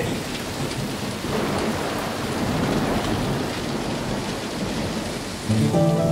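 Rain falling steadily, a dense hiss with a low rumble under it. Music comes in about five and a half seconds in.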